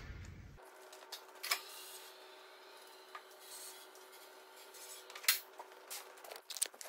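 Two-post vehicle lift lowering a car: a faint steady hum with a few light clicks and knocks, the loudest a little after five seconds in.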